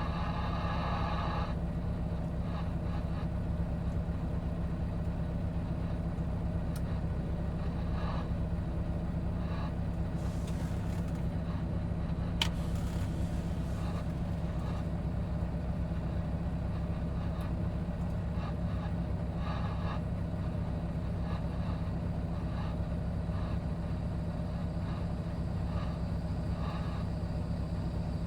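Diesel engine of a piece of earthmoving equipment running steadily while grading, with one sharp click about halfway through.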